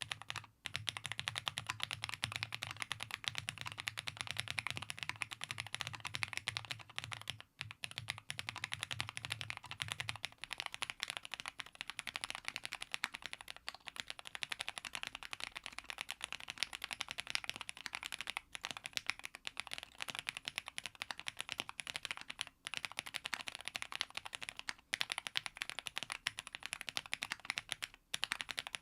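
Fast, continuous typing on a Meletrix Zoom65 gasket-mount mechanical keyboard with JWK linear switches and PBT keycaps, with a few brief pauses. The key sound is muffled and 도각도각 (thocky), the switches' high pitch damped by the poron foam underneath. A low hum underneath stops about ten seconds in.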